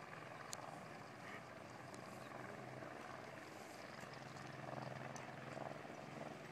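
Faint outdoor background noise, with a low steady hum that grows louder in the second half and a few faint clicks.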